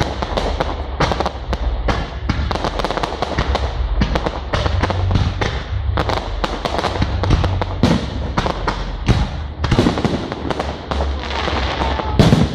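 Aerial fireworks display: a rapid, continuous string of bangs and crackles, several each second, with the loudest bang near the end as a large shell bursts.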